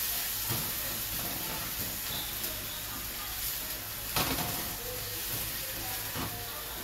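Minced lemongrass and garlic sizzling in hot oil in a wok with a steady hiss, stirred with a spatula that knocks against the pan once about four seconds in.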